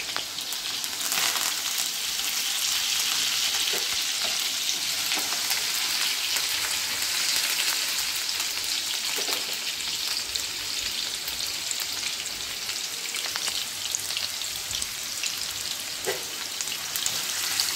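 Potato cubes sizzling steadily in hot oil in a non-stick frying pan, stirred with a wooden spatula that knocks against the pan a few times.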